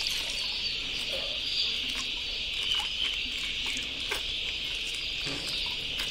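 A dense, steady high-pitched chirping chorus, with a few faint clicks and a light trickle as milk runs from a squeezed packet into a bucket of water.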